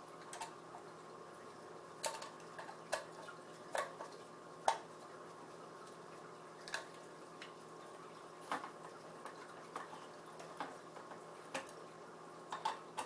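Small metal clicks and taps of a hex key working the screws out of the metal bottom plate of a Digitech Death Metal guitar pedal. They come at irregular intervals over a faint steady hum.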